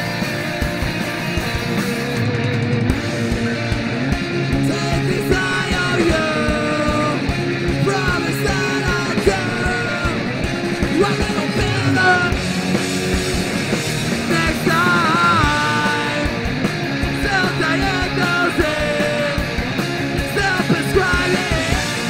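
Punk rock band playing live at full volume: dense, driving guitars and drums with yelled vocals.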